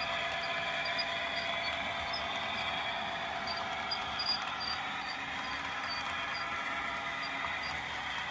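Model railway locomotive running on the layout: a steady high-pitched motor whine with faint, regular light clicks.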